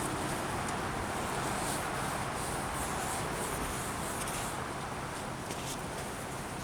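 Steady rushing background noise, with faint rubbing sounds and a couple of light ticks over it.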